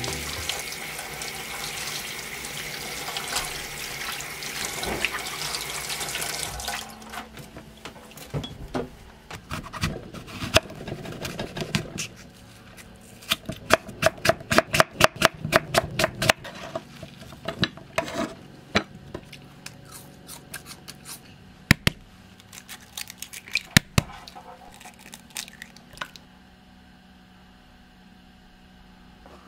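Kitchen tap running onto lettuce leaves in a stainless steel sink, stopping suddenly about seven seconds in. Then a knife knocking on a wooden cutting board while slicing an apple, scattered at first and then a quick run of taps, about four or five a second.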